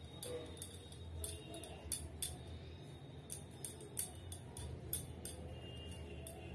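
Hands plucking a scalded chicken in a metal pan: scattered sharp clicks and light taps at irregular intervals, over a faint low hum.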